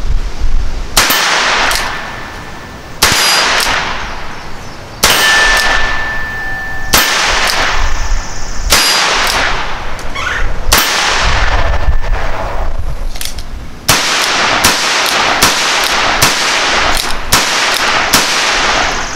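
Ruger Super Wrangler .22 single-action revolver firing: six shots about two seconds apart, each cracking sharply and ringing. After a short pause, a quicker string of shots follows at about two a second.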